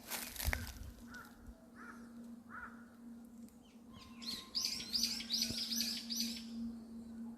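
A wild songbird calling: three short chirps, then a quick run of about seven high notes.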